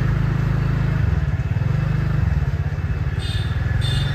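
Motorbike engine running at low road speed under the rider, a steady low hum whose pitch dips about a second in and climbs back a second or so later. Two short high-pitched chirps sound near the end.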